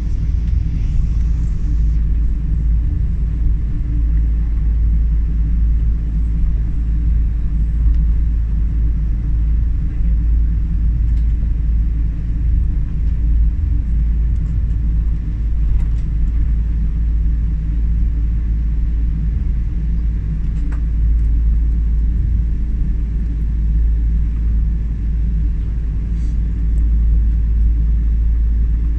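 Steady low rumble inside the cabin of a Boeing 777 as it taxis, with its engines running at low power and the aircraft rolling over the concrete.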